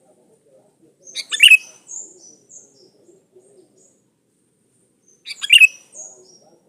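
Sooty-headed bulbul calling: two short, loud chirping phrases about four seconds apart, each followed by a few softer, higher notes.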